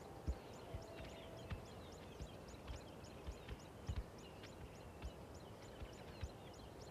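Faint outdoor nature ambience: short high chirps repeating evenly about four times a second, with scattered lower chirps and occasional soft low knocks.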